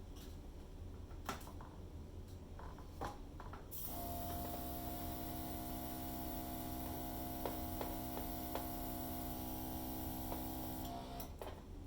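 Handheld hairdryer starting about four seconds in and running steadily, a motor hum under a rushing hiss of air, blowing acrylic paint across a canvas; it stops near the end. A few light knocks come before it starts.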